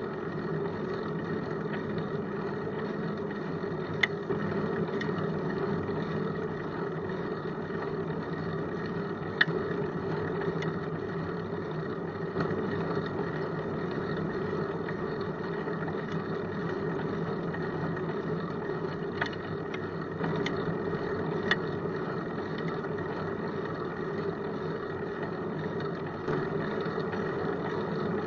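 Bicycle rolling on asphalt, heard from a camera mounted low on the bike: a steady rumble of tyre and road noise, with a few sharp clicks or knocks as it goes over bumps.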